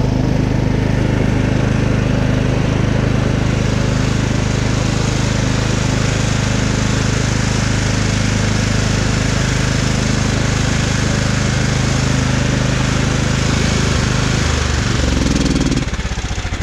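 Riding lawn mower engine running steadily at speed, then throttled back near the end, dropping to a slower, pulsing idle.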